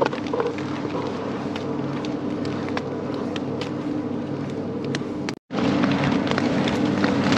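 Steady hum of a 100 kW wind turbine's machinery running a couple of metres overhead, made of several constant low tones, with scattered light ticks. It drops out for a moment about five seconds in and comes back a little louder.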